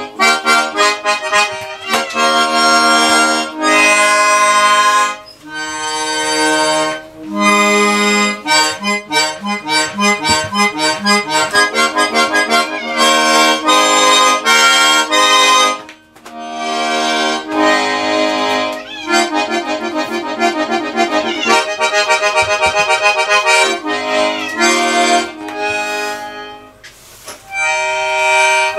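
Small button accordion played in loud bursts of chords and quick repeated notes, squeezed out without a proper tune. The playing breaks off briefly about halfway through and again near the end.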